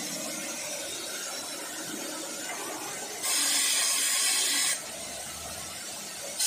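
Compressed air hissing out in a burst of about a second and a half from the FIBA device in an LHB coach's underframe brake panel as it is reset, over a steady lower hiss. A sharp click comes at the very end.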